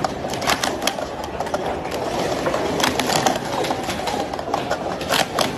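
Plastic speed-stacking cups being stacked and unstacked at speed by two players working together in a doubles run: a fast, uneven clatter of light plastic clicks over steady background noise.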